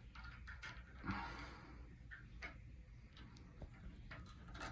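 A few faint, scattered clicks and taps from hands handling a voltage tester against the wiring in an opened light switch box.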